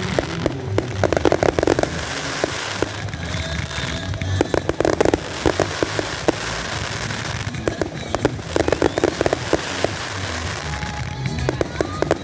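Fireworks display: repeated clusters of crackling bangs every few seconds, over music with a pulsing low beat.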